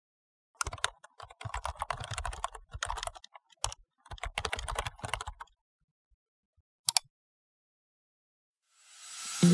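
Typing on a computer keyboard, a quick run of irregular key clicks for about five seconds, followed by a quick double click a little later. A rising whoosh swells in near the end.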